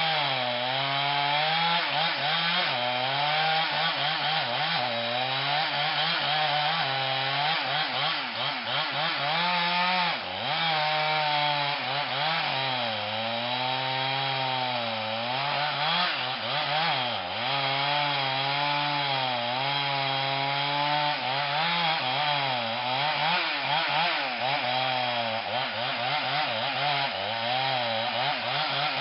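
Chainsaw cutting into a tree trunk, running hard the whole time, its engine pitch dipping and rising repeatedly as the chain bogs under load and the throttle comes back up.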